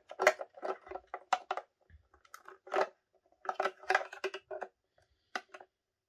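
Hard plastic parts of an AquaClear hang-on-back aquarium filter being handled and fitted together: an irregular series of light clicks and knocks, some with a short hollow ring.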